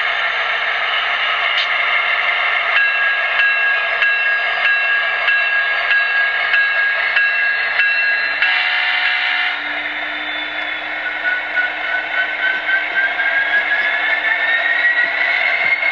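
Onboard DCC sound decoder of an HO-scale Athearn Genesis SD70ACe model playing diesel locomotive running sounds through its small speaker as the model moves slowly along the track. The first half holds a steady tone with regular ticks, and a whine rises in pitch over the last few seconds.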